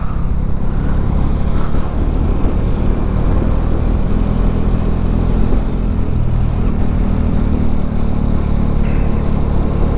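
Bajaj Dominar 400's single-cylinder engine running steadily while riding, heard with the rush of wind and road noise. The engine note changes briefly about six and a half seconds in.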